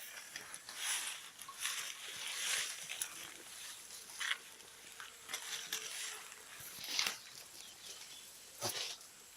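Goats in a farm pen: scattered rustling and shuffling noises, with a faint bleat about midway.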